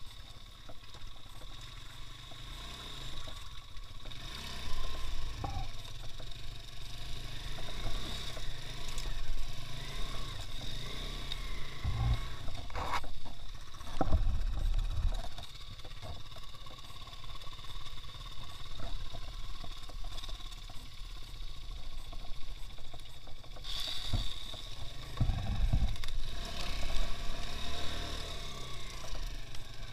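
Two-wheel-drive off-road motorcycle's engine running under a continuous low rumble, with a few knocks and jolts about halfway through and again near the end.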